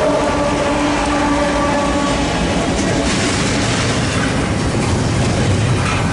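Union Pacific train running on the rails, a steady rumble and rail noise, with a steady tone that fades out about two seconds in.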